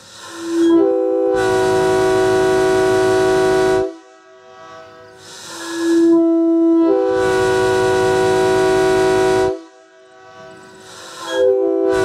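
Leslie RS3K three-chime locomotive air horn blown in long blasts of about three to four seconds each. Every blast opens on a single low note before the other bells come in to sound the full chord. Two blasts sound in full, and a third starts near the end.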